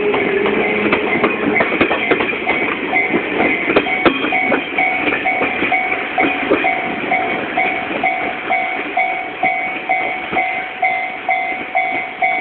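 Japanese level-crossing warning bell ringing in a steady repeating pulse, about two a second, while a train runs over the rails with wheels clicking over the joints, its noise fading away.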